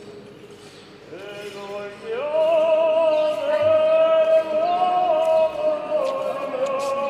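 A male voice chanting an Armenian liturgical hymn, quiet at first and then, from about two seconds in, louder with long held notes that step slowly from pitch to pitch.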